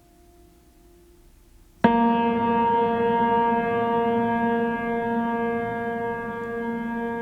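A sudden, loud, sustained pitched tone with many overtones, starting about two seconds in and holding steady with only a slow fade.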